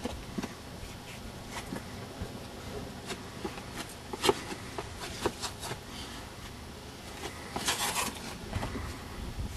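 Scattered scuffs and taps of shoes and hands on a sandstone wall as a man climbs down it, with a longer scrape near the end, over a steady low rumble.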